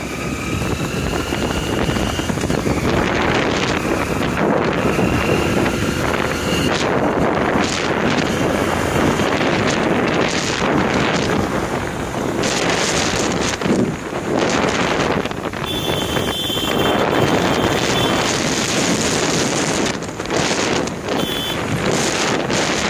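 Wind rushing over the microphone of a moving motorcycle, with the bike's running and road noise underneath and a few short high tones.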